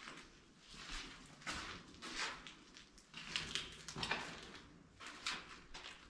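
Footsteps scuffing and crunching over a concrete floor strewn with debris, an irregular series of steps about one or two a second.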